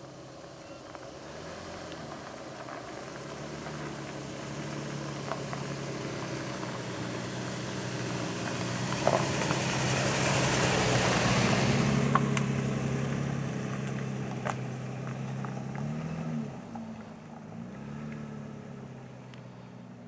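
Lifted 2008 Toyota Tacoma 4x4 pickup driving past on a dirt track: its engine and tyre noise grow louder as it approaches, are loudest about halfway through as it passes, then fade as it pulls away. The engine pitch dips and rises twice near the end, with a few sharp clicks along the way.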